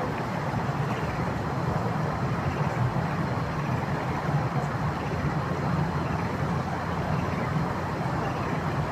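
River water flowing and rushing in a steady, unbroken roar, heaviest in its deep low tones.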